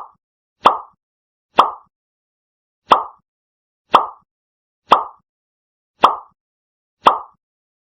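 A plop, repeated eight times at roughly one-second intervals; each is sharp and fades quickly.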